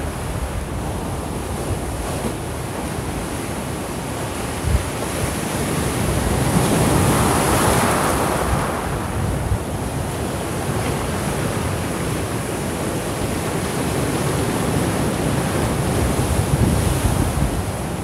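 Heavy storm surf driven by an approaching typhoon, breaking and washing in over a rocky shore, with one bigger wave swelling up about seven seconds in. Wind buffets the microphone.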